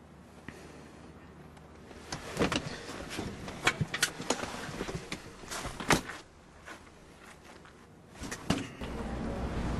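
Car door being opened and handled from inside a parked car: a run of clicks and knocks, ending in a door shut about six seconds in, the loudest sound. A few more clicks follow, then a low steady rumble starts near the end.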